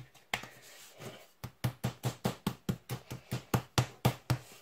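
Wooden rolling pin tapping a chilled block of puff pastry dough on the worktop to flatten it before rolling: a quick, even run of knocks, about five a second, starting about a second and a half in. Softer handling clicks come before it.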